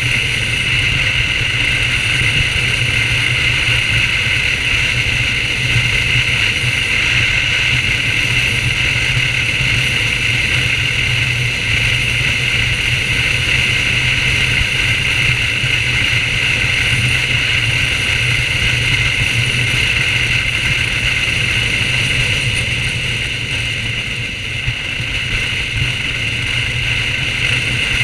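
BMW R1200GS flat-twin engine running steadily while the motorcycle rides along, mixed with wind and road noise. The sound eases off slightly a few seconds before the end, then picks up again.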